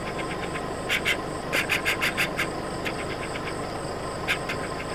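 Night-time insect chorus: a steady high trilling, broken three times by bursts of rapid sharp chirps, several pulses to a burst.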